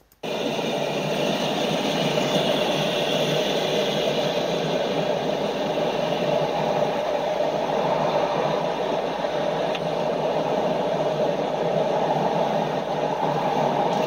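Steady rushing outdoor noise from riverside footage played back through computer speakers and re-recorded, starting abruptly as playback resumes.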